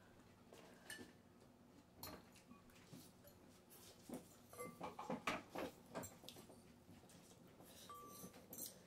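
Faint eating sounds at a table: scattered small clicks of forks in glass bowls and short slurps of noodles, most of them about four to six seconds in.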